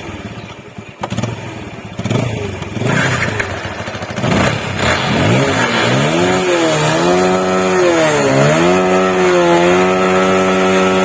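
Motorcycle engine running, uneven at first, then rising and falling in pitch as it is revved and settling to a steady note near the end. Picked up by a smartphone's built-in microphone.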